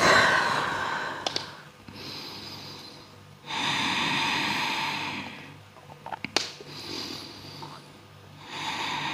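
A person breathing deeply and audibly, several slow, long breaths in and out, with a few small clicks about two-thirds of the way through.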